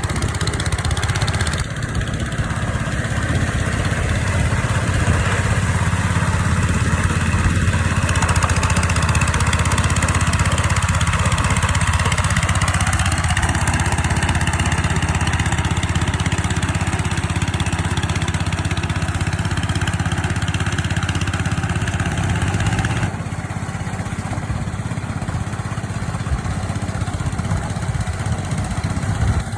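Engine of a rice-field plough tractor running steadily, its sound changing abruptly about two seconds in and again about 23 seconds in.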